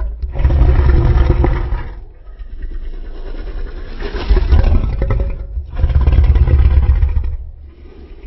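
Custom Godzillasaurus monster roar sound effect: three loud, deep roars about two seconds apart, with quieter rumbling between them, fading away near the end.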